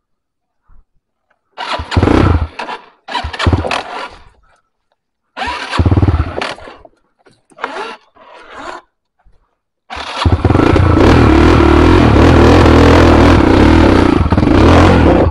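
Dirt bike engine firing in four short bursts, each about a second long, with gaps between them. About ten seconds in it catches and runs steadily and loud.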